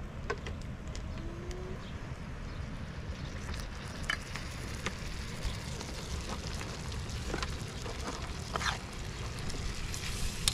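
Food sizzling in a metal frying pan over an open wood fire, the hiss growing stronger a few seconds in, with scattered sharp clicks. A steady low wind rumble on the microphone runs underneath.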